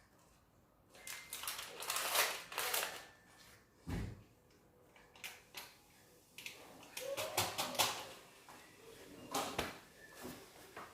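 Irregular clicks, knocks and rustling from handling containers and parts at a front-loading washing machine, with one heavier thump about four seconds in.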